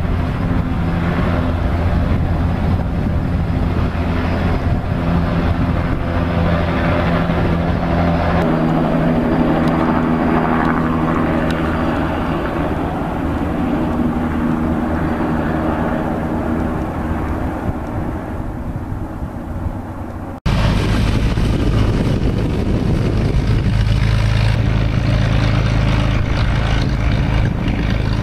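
Helicopter running steadily as it lifts off and flies low. After a sudden cut about two-thirds of the way through, a small single-engine propeller airplane's engine runs steadily as it taxis.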